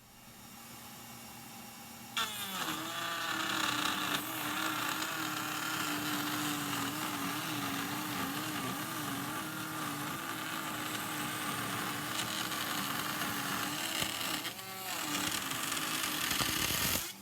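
Bosch Colt trim router in a router table, starting up with a quick rising whine about two seconds in, then running steadily as it cuts rabbets along the gable ends, its pitch wavering under load. It dips briefly near the end and stops suddenly.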